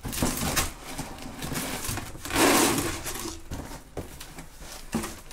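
Brown packing paper rustling and cardboard boxes being handled, in irregular bursts, with the loudest rustle about two and a half seconds in and a few light knocks of cardboard.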